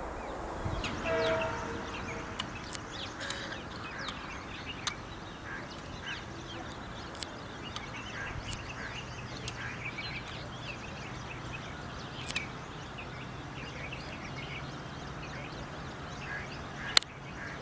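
Birds chirping and calling, with a brief louder pitched call about a second in. A faint low steady hum comes in about halfway through, and there is a single sharp click near the end.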